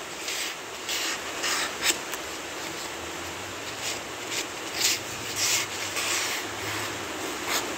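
A very sharp mini cleaver blade of 1070 carbon steel slicing through a sheet of paper in a string of short rasping strokes, about ten, one after another. The clean cuts show the keen edge.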